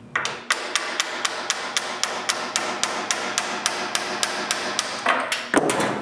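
Steel hammer tapping rapidly and evenly, about five blows a second, on a bolt screwed into a Morse taper to drive the taper out of a wood lathe's tailstock. The blows stop shortly before the end.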